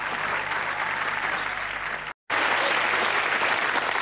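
Audience applauding. The sound cuts off abruptly a little over two seconds in, and after a brief moment of silence a similar dense clapping noise starts again.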